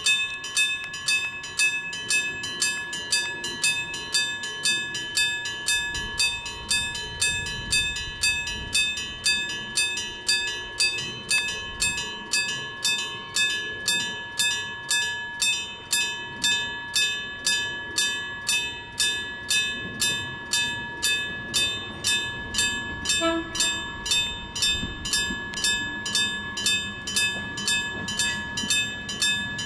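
Electric-bell (denshō-type) railway level crossing warning bell ringing: a metal bell struck steadily, a little under two strikes a second, each stroke ringing on.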